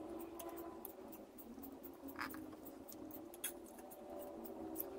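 Faint ticks and scratches from a soldering iron tip and fingers working at the wire tab of a subwoofer driver's terminal during desoldering, a few of them a little louder, over a low steady hum.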